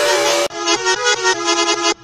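Edited bus horn sound effect: a held horn tone sliding slightly down in pitch over a hiss is cut off about half a second in. A choppy run of short horn notes follows, changing pitch like a little tune.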